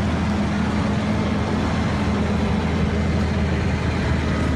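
Heavy diesel engine of a Caterpillar mining haul truck running steadily, a deep even sound.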